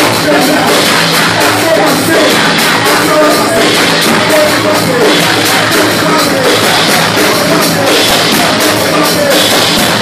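Live gospel worship music played loud through a PA: voices singing into microphones over a band with a steady beat, and the congregation clapping along.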